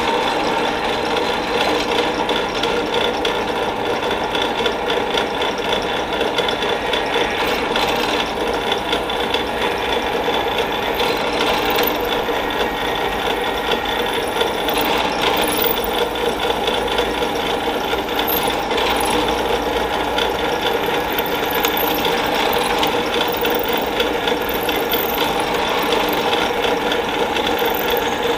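Drill press running steadily, spinning a piece of 1/2-inch all thread in its chuck against a drill bit held in the vise, drilling a hole through the rod's centre.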